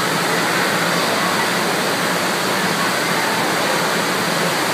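Steady rush of water from a FlowRider wave machine, a thin sheet of water pumped at speed up its padded ride surface.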